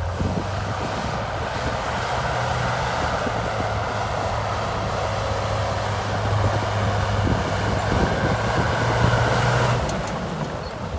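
Heavy diesel engine of an earthmoving machine running steadily under load, easing off near the end.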